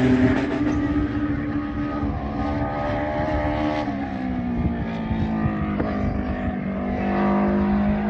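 Turbocharged Yamaha FJ1200 inline-four motorcycle engine in a formula libre race car, running hard on track and heard from trackside. Its pitch drops about four seconds in, then climbs slowly again.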